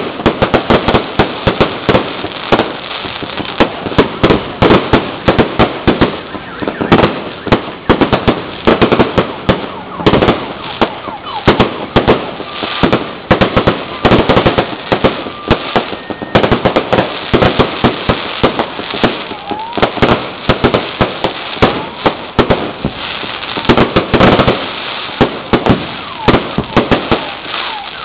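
Aerial fireworks display going off at close range: a rapid, continuous string of loud bangs and crackling reports, several a second.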